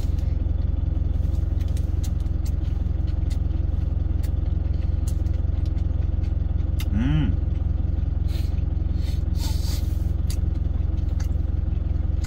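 Steady low rumble of a truck's idling engine heard inside the cab, with scattered small clicks of chewing. About seven seconds in comes a short hummed 'mm' that rises and falls.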